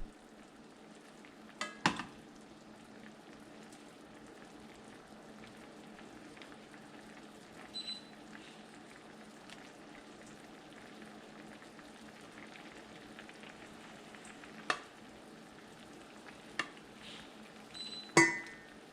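Squid adobo sizzling steadily in a pan, with a few sharp clinks of a cooking utensil against the pan, the loudest near the end.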